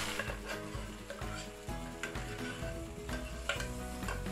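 Soft background music with a slow melody, over a faint sizzle from a hot pan of fried masala as cooked rice and moong dal are tipped into it. A few short scrapes of a spatula against the pot come through.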